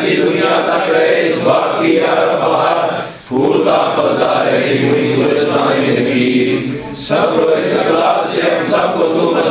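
A group of men's voices chanting together in a devotional Sufi chant, in long sustained phrases with a short break about three seconds in.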